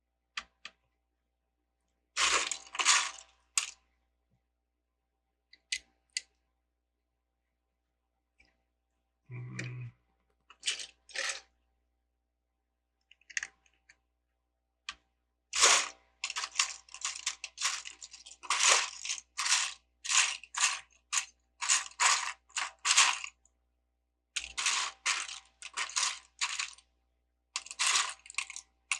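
Plastic LEGO pieces clicking and clattering as they are handled and pressed together: scattered clicks at first, then a dense run of rattling clicks from a little past halfway.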